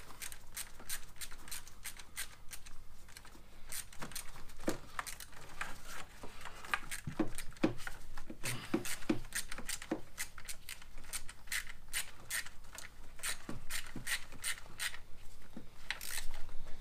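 Hand ratchet and socket clicking in irregular runs of sharp clicks while the intake manifold bolts are tightened by hand.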